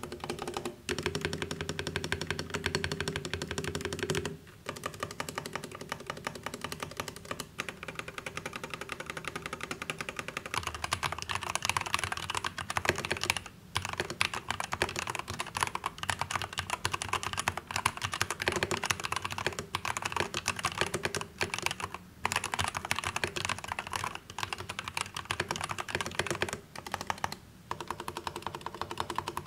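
Typing on an ROG Falchion Ace 65% mechanical keyboard with pre-lubed ROG NX Red linear switches: a continuous run of keystroke clacks with a few short pauses. About ten seconds in the typing turns brighter, with the board now set in its clip-on keyboard cover, and the large keys' stabilizers give no wire rattle.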